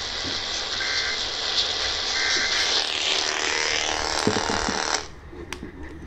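AM radio static hissing from a small portable radio's speaker tuned to 1110 kHz, with two faint short tone bursts buried in it. The hiss cuts off abruptly about five seconds in, followed by a click.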